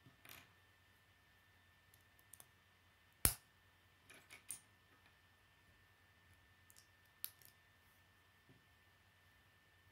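Small plastic Lego bricks clicking as they are handled and pressed together: scattered, irregular sharp clicks, with one louder snap about three seconds in.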